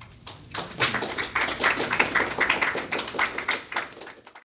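A small audience applauding, starting about half a second in and cutting off suddenly near the end.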